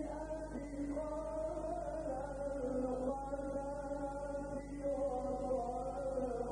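A man's solo Quran recitation in the melodic Egyptian style, with long, held notes that glide and ornament between pitches, through a microphone. A steady low hum runs underneath.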